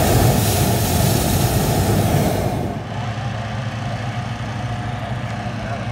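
Hot-air balloon's propane burner firing in one loud blast that starts suddenly and cuts off after about two and a half seconds, over a steady low hum.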